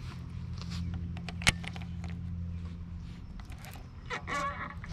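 Steady low electric-motor hum from the fishing kayak's motor, with one sharp click about a second and a half in and a short rattle near the end.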